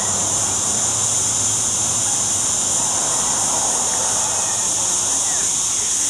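A steady high-pitched hiss runs on without change, with faint distant voices underneath.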